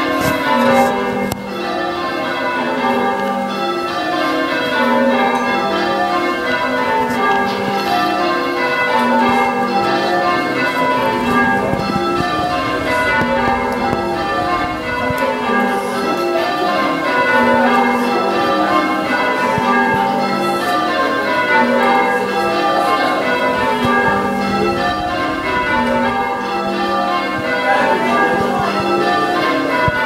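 A ring of six church bells in change ringing: the bells strike one after another in a steady, unbroken stream, each row of strikes stepping down in pitch from the highest bell to the lowest.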